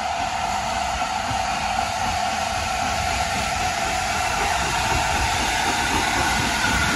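LNER A4 three-cylinder Pacific steam locomotive working past under power: a steady rushing of steam over a low rumble, growing slightly louder as it draws near.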